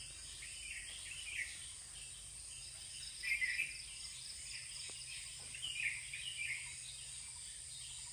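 Steady high-pitched drone of insects, with bird calls breaking in three times: about a second in, around three seconds in, and near six seconds in.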